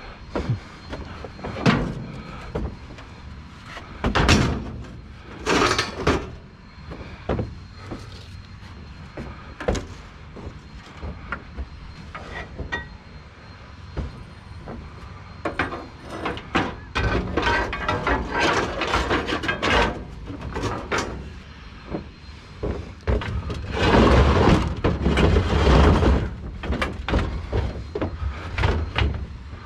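Scrap metal being handled and loaded: a run of separate knocks and clanks, then longer stretches of rattling and scraping about two-thirds of the way through and again near the end.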